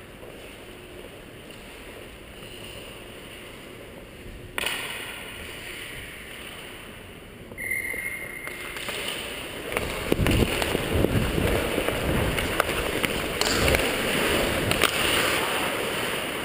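Ice hockey play heard from a player-worn camera on the ice: skate blades scraping and stick and puck knocks. From about ten seconds in, the sound gets much louder, with rumbling noise and frequent sharp knocks as the wearer skates into the play.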